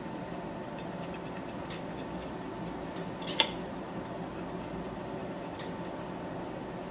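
Steady hum of electronics bench equipment, with faint small ticks of a tool working on a circuit board and one sharp click about halfway through.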